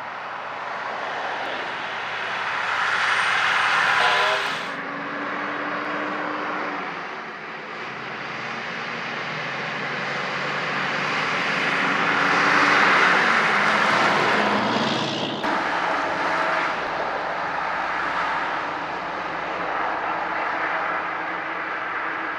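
Road traffic passing: heavy trucks and cars go by one after another, with tyre noise and engine drone that swell as each passes. The loudest passes come about three to four seconds in and again around twelve to thirteen seconds.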